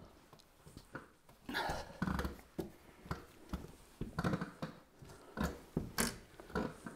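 A man shifting his weight and leaning about in a boat seat on a newly fitted seat pedestal: about a dozen irregular knocks, thumps and rustles, with no creaking from the seat.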